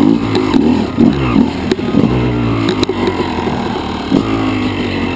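Yamaha YZ250 two-stroke dirt bike engine, heard from on the bike, revving up and down repeatedly as the throttle is blipped at low speed, with a couple of sharp clicks.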